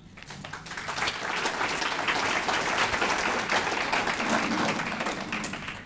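Audience applauding, building up over the first second and tailing off near the end.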